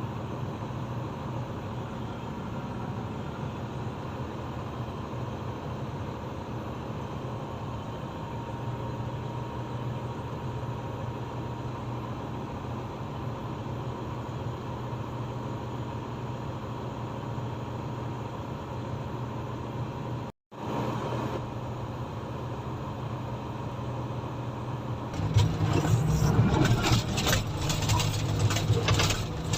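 Komatsu motor grader's diesel engine running steadily, with a brief drop to silence about two-thirds of the way through. About 25 seconds in the engine gets louder, with rattling and clanking over it.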